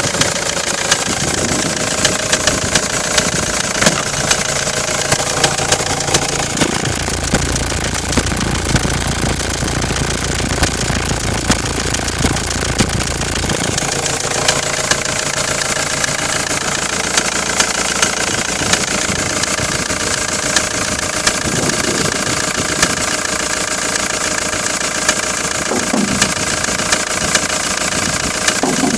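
Ford Transit 2.4 Duratorq four-cylinder diesel engine running, with sharp knocks recurring throughout: the knocking noise the van has developed. A deeper rumble joins for several seconds about seven seconds in.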